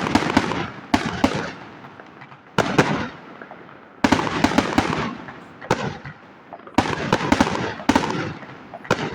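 Fireworks going off in repeated volleys of sharp bangs and dense crackling, a fresh cluster of reports every second or two.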